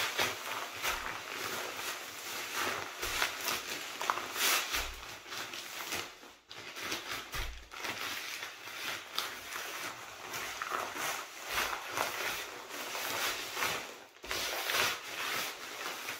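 Plastic bag of ammonium nitrate prills and fine aluminum powder being kneaded and shaken by hand: continuous crinkling of the plastic with the granules rustling and shifting inside as the powder is worked through to coat them. It pauses briefly twice, about six and fourteen seconds in.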